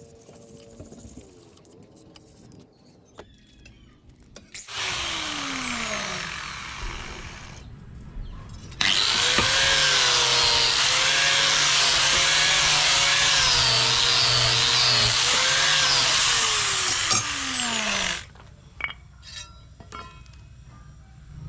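An electric abrasive power tool worked against metal or wood in two spells. A shorter one starts about five seconds in. A longer, louder one runs from about nine to eighteen seconds, its pitch wavering as the load changes. The motor winds down with a falling whine when it is switched off, and a few light knocks follow.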